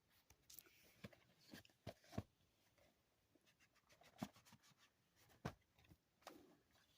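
DVD box-set packaging being handled: a scatter of sharp plastic clicks and taps, with brief rustling in between.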